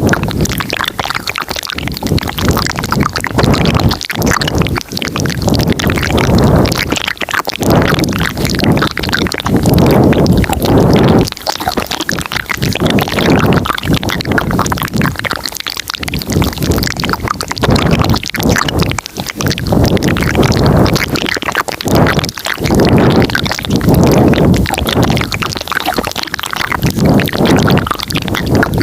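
Layered ASMR mouth sounds very close to the microphone: wet clicks and smacks piled over one another, with low rumbling swells that rise and fall every second or two.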